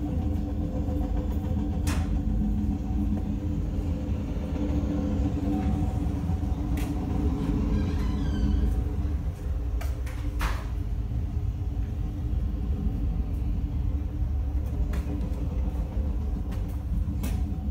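Autorack freight cars rolling past: a steady, heavy low rumble of steel wheels on rail, broken by a few sharp clanks.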